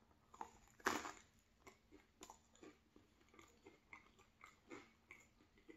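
A bite into a cheese bagel filled with raspberry jam, the loudest sound about a second in, then chewing with many small mouth clicks and smacks.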